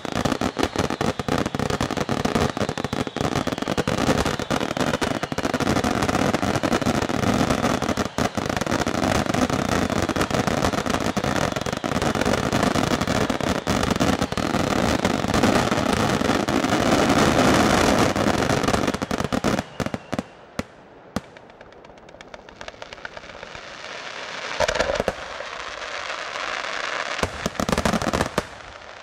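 Aerial firework shells bursting in a dense, continuous barrage of bangs and crackle for about twenty seconds. The barrage then drops away to a few separate bangs, and more bursts come near the end.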